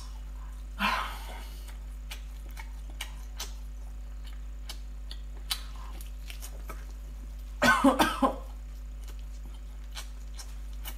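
A woman eating chili-coated food, with small wet mouth clicks and smacks of chewing throughout. There is a breathy burst about a second in and a short fit of about three coughs near eight seconds.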